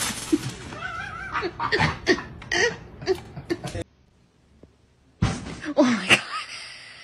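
People laughing in short bursts with a few voice sounds. About four seconds in the sound drops to near silence for a second and a half, and then voices come in again.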